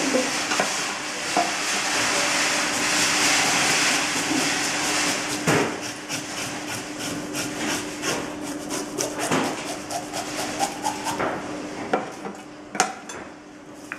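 A slicing-knife blade scraping the scales off a whole salmon. It starts as a continuous rasping, then breaks into quick short strokes with now and then a louder knock, and thins out near the end.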